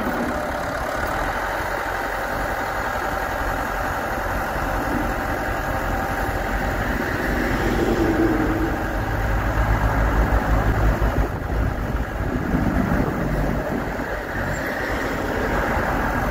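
Diesel engine of a Cat IT28B wheel loader running steadily while the boom and bucket are worked hydraulically. The sound gets louder and uneven for a few seconds in the middle.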